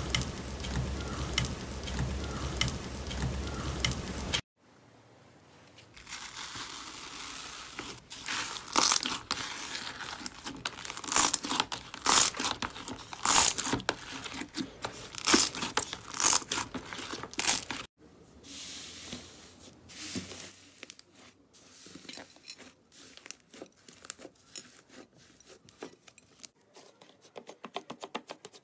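Slime being squeezed and stretched by hand, with crackling, crinkling rustles and many sharp popping clicks, the kind of sound made by crunchy or clicky slime. About four seconds of background music with a steady beat come first and then cut off.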